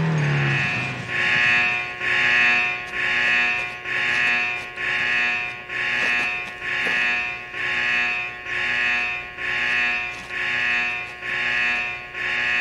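Mine warning alarm: a harsh buzzing tone pulsing evenly, a little faster than once a second. It is the kind of signal sounded before blasting.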